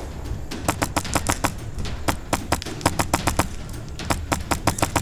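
Airsoft guns firing in quick strings of sharp shots, several a second, in three bursts.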